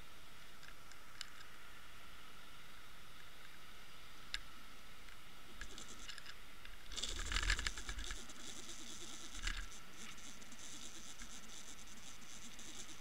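Sound picked up by an underwater camera in murky lake water: a steady hiss, broken by a few sharp clicks, then a louder burst of crackling and scraping about seven seconds in and a shorter knock a couple of seconds later.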